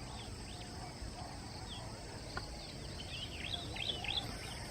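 Small birds chirping in quick short calls, bunched together about three and a half to four seconds in, over a steady faint outdoor background.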